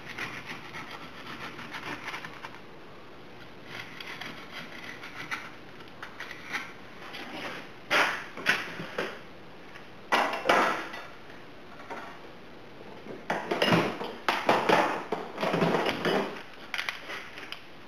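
Intermittent metallic clatter and clanking in several irregular bursts, like hand tools being picked up and handled, loudest about eight seconds in and again between thirteen and seventeen seconds.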